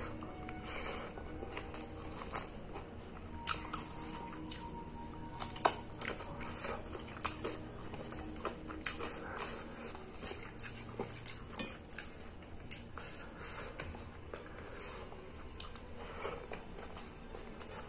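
Close-up eating sounds: wet chewing and lip smacking of rice and curry, with scattered sharp clicks of fingers mixing food on a steel plate, the loudest about five and a half seconds in.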